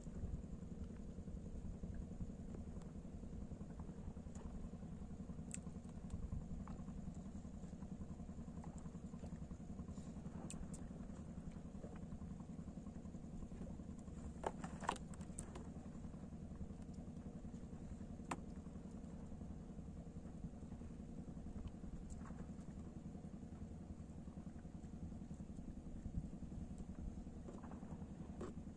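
A steady low motor hum, like an engine running, with a few faint clicks and taps.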